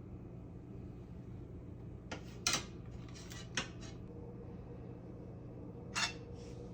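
Short metallic clinks and scrapes of a frying pan and kitchen utensils being handled, a cluster about two to three and a half seconds in and one more near the end, over a steady low hum.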